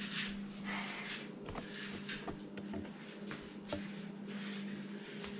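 Scattered light clicks, knocks and rustles of hands handling tools and parts on a minibike during an oil change, over a steady low hum.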